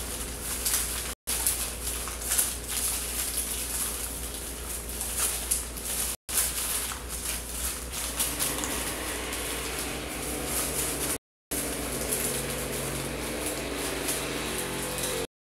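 Paper banknotes and receipts crinkling and rustling as they are pressed and rubbed against skin, with a steady low hum underneath. The sound cuts out briefly four times.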